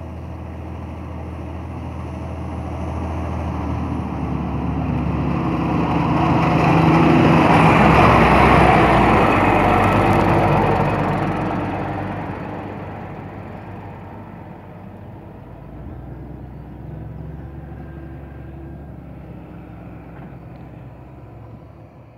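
John Deere 7530 tractor's six-cylinder diesel engine running steadily as it pulls a Kuhn Integra 3003 seed drill toward and over a microphone at ground level, with the rattle of the drill passing through soil. It grows louder to a peak about eight seconds in, then fades as it moves away.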